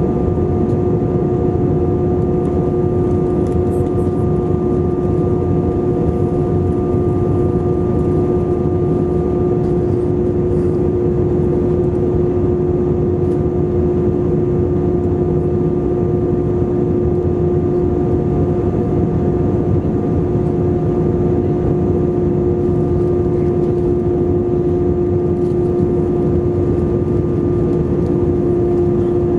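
Airbus A320 cabin noise over the wing during the descent: the jet engines and rushing air make a steady roar with an unchanging hum on top.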